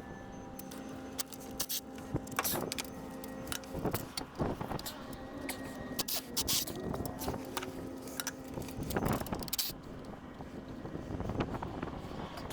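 Irregular metallic clinks, clanks and scrapes of tools and parts being handled during engine repair work, over a steady engine hum.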